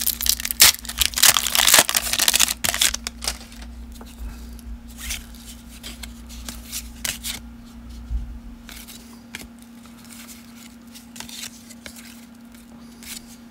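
Foil wrapper of a baseball card pack torn open and crinkled for about the first three seconds. Then softer, scattered rustles and clicks of the cards being handled and slid through by hand.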